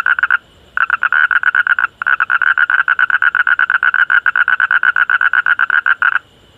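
Frog calling in rapid, even pulse trains of about ten croaks a second: two short runs, then a long run of about four seconds that stops abruptly about six seconds in.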